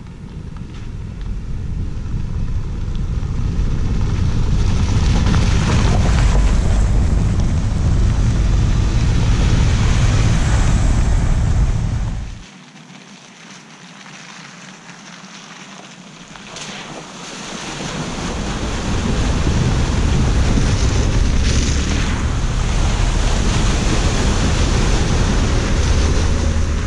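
Jeep Wrangler and a second off-road truck driving up a wet gravel road toward the microphone: engine and tyre noise grows louder as they approach. The sound drops away about halfway, then builds again as the Jeep comes through mud and passes close by, with wind buffeting the microphone.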